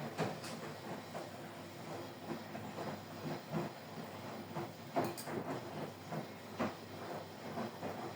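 Washing machine running: a steady hum with irregular knocks and a few sharper clunks.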